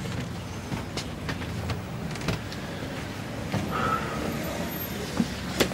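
A steady low hum with scattered small clicks and knocks, and one sharper click near the end.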